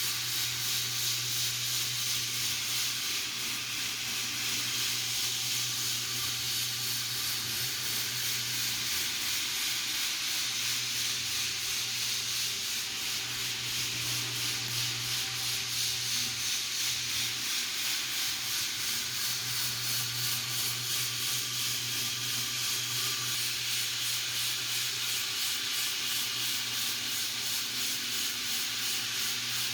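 Power floor sander running steadily, abrading a hardwood floor: a continuous gritty sanding noise over the hum of its electric motor.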